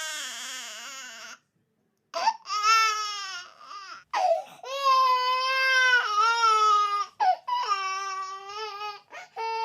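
Baby crying in long, high-pitched wails: the first fades out about a second in, then after a short pause come three long wails, followed by short sobbing cries near the end.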